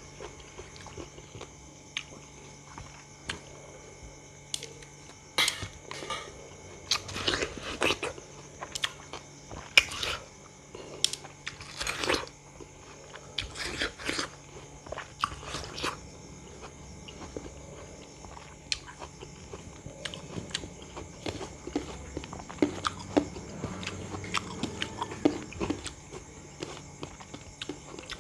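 Close-up eating sounds: a person biting into and chewing crisp, juicy raw fruit, with irregular wet crunches and clicks and a few louder bites.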